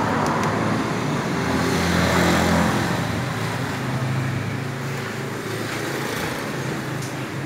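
Motor vehicle engine running steadily, its low drone swelling about two seconds in and then easing off, over a general hiss.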